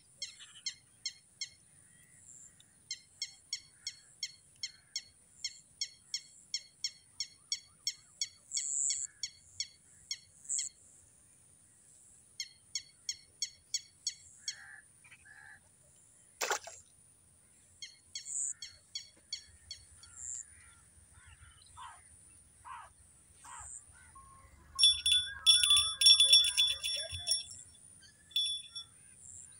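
Wild bird calling, a short high call repeated about three times a second in long runs. Near the end there is a louder burst of rapid chirping. A faint steady high hiss runs underneath, and there is one sharp click about sixteen seconds in.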